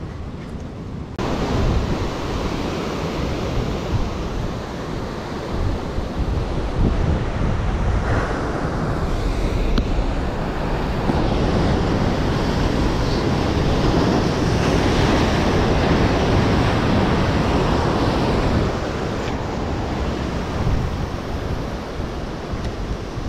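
Sea waves surging and breaking on the shore, with wind buffeting the microphone. The surf swells louder about a second in and is loudest in the middle stretch.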